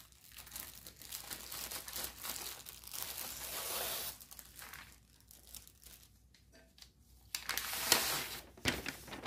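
Clear plastic packaging and paper crinkling and rustling as a cross-stitch kit's folded canvas and printed pattern sheet are pulled out of their bag and unfolded. It comes in uneven bursts, eases off about two thirds through, then one loud crinkle comes near the end.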